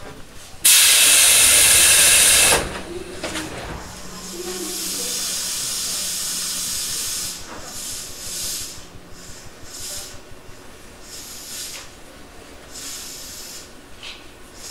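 Compressed air venting from a Tobu 8000 series electric train's air system while it stands at a station: a loud hiss of about two seconds starting about half a second in, then a softer, longer hiss about four seconds in, and short puffs of air after that.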